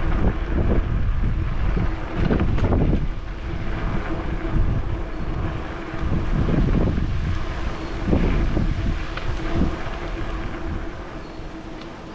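Wind buffeting the microphone of a bicycle-mounted camera while riding, swelling and falling in uneven gusts, with a faint steady hum underneath.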